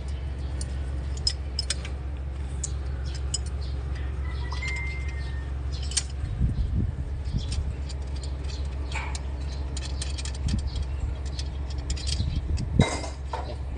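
Isuzu 4HL1 four-cylinder diesel engine idling steadily after its hard-starting repair, with scattered light metallic clinks over it and a sharper knock near the end.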